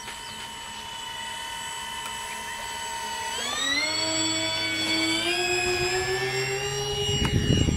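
Electric motors and propellers of an RC twin-engine Albatross flying boat model whining steadily, then throttling up sharply about three seconds in and climbing slowly in pitch. A short burst of low rumbling noise comes near the end.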